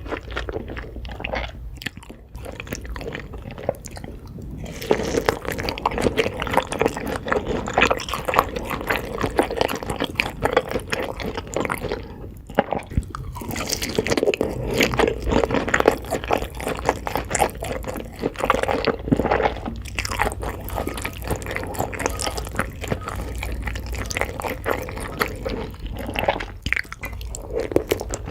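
A person chewing and biting into food, with wet squishing and crunching bites in a continuous run of short irregular clicks.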